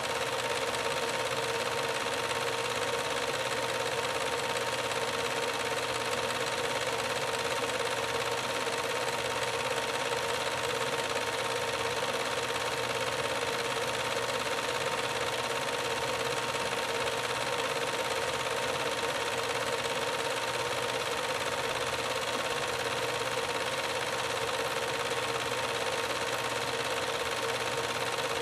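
Film projector running steadily: an even mechanical whir with a constant hum tone, and no other sound.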